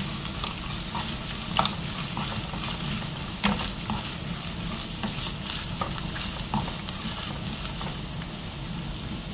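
Shredded cooked chicken, chopped prawns and spring onion sizzling in hot oil in a frying pan, with occasional sharp clicks and scrapes of a spatula stirring against the pan.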